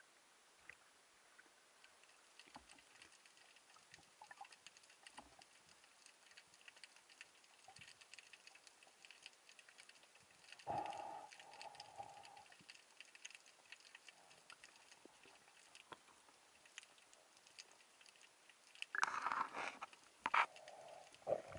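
Faint underwater crackling and clicking picked up through a camera housing, with a louder knock about halfway through and a cluster of knocks and rubbing near the end as the speared fish and gear are handled close to the camera.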